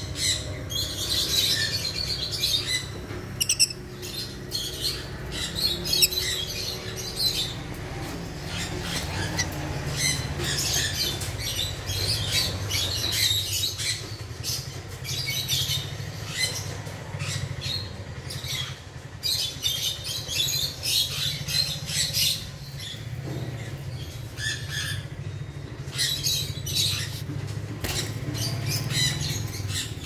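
African lovebird chicks calling: clusters of short, high-pitched raspy chirps and squawks that come and go throughout, over a steady low hum.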